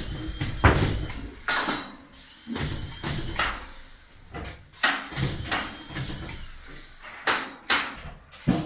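Irregular knocks and short scraping sounds of plasterboard being handled and fitted during drywall work, about eight or nine in all, the sharpest about half a second in.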